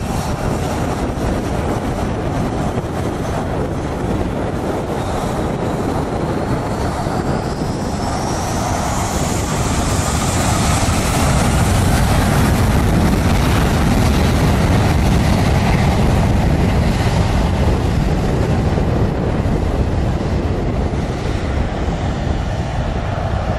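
Jet airliner's engines spooling up to takeoff thrust behind the fence, a loud, steady roar of jet blast with a rising whine. It grows louder about eleven seconds in.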